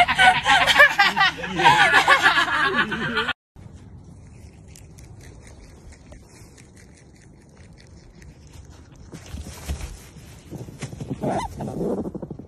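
A person laughing hard, in quick repeated bursts, which cuts off suddenly about three and a half seconds in. Faint outdoor background follows, with a short louder call-like sound near the end.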